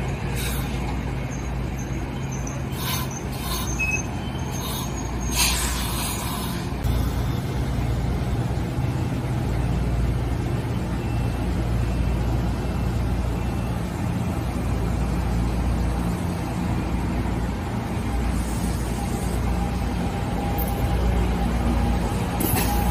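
NJ Transit Arrow III electric multiple-unit train moving slowly past the platform: a steady low rumble and hum from its motors and wheels, with a few short sharp clicks and hisses in the first six seconds.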